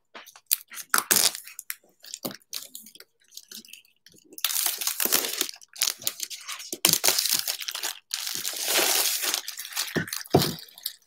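Cardboard Apple iPad Pro box being handled: scattered light clicks and taps, then, about four seconds in, several seconds of rustling and rubbing as the lid is worked off the box.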